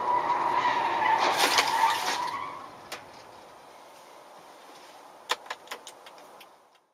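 A vehicle collision: a high steady squeal of skidding tyres runs into a loud crunch of impact about a second and a half in, with scattering debris. Near the end there are a few sharp clicks and tinkles of loose parts.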